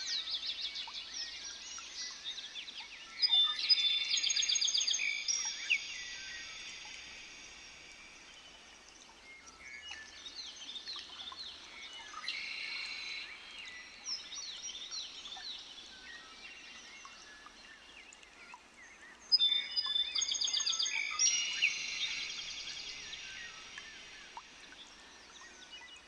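Birds singing and chirping, with two loud bursts of song that start suddenly about three seconds in and again near the twentieth second.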